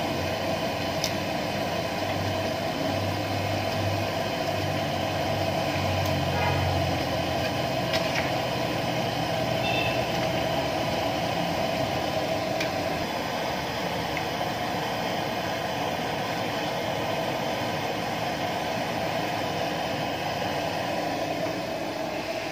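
Battered banana slices deep-frying in a wok of hot oil: a steady sizzle, with a few light clicks of the metal spatula and tongs against the wok.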